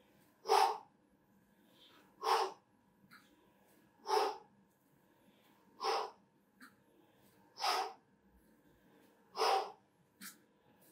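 A person's sharp, forceful exhalations, the breathing of someone working hard through a cardio exercise. There are six of them at a steady pace, about one every second and three quarters.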